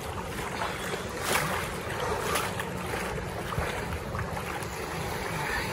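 Steady rush of wind and sea water, with wind buffeting the microphone.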